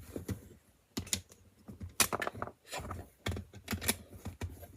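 Plastic LEGO bricks clicking and clacking as pieces are handled and pressed together, in irregular sharp clicks, some in quick little clusters.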